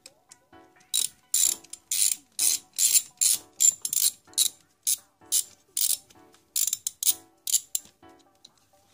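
Hand ratchet clicking in a quick run of strokes, about three a second, as it loosens a bolt holding down an ignition coil pack; the clicking stops near the end.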